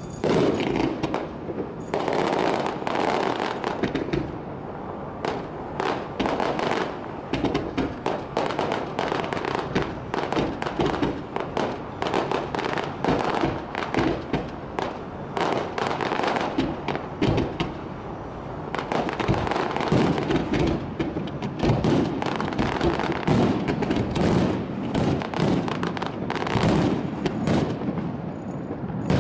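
Fireworks display going off in a dense barrage: aerial shells and comets firing and bursting, many bangs and crackles in quick succession with hardly a pause.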